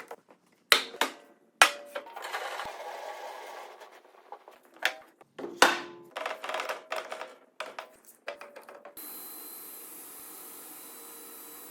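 Sharp knocks and clatter of workpieces and saw parts being handled at a sliding panel saw, several of the knocks ringing briefly. Near the end a steady hiss of running machinery starts abruptly.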